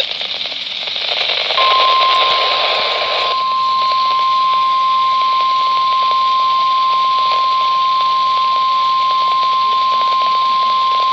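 Radio hiss, then about a second and a half in, the NOAA Weather Radio warning alarm: a single steady 1050 Hz tone held at one pitch and level, the signal that a warning message follows.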